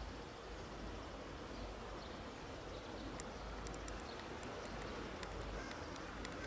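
Faint outdoor ambience: a steady low rumble and hiss, with a scatter of short, very high chirps or ticks from about three seconds in.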